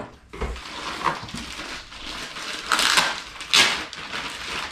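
Winch kit parts being unpacked: packaging crinkling and rustling, with clinks of metal mounting hardware. Two louder bursts come about two and a half and three and a half seconds in.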